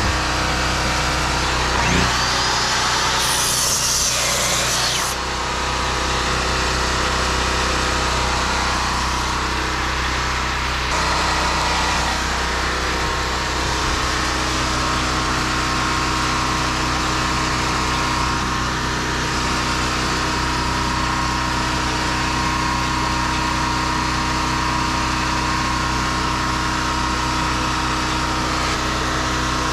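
A small engine running steadily at a constant speed, with a brief brighter hiss over it about three to five seconds in.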